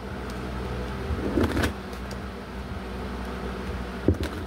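Tarot cards being shuffled and handled in the hands, with a brief rustle about a second and a half in and a sharp click near the end, over a steady low hum.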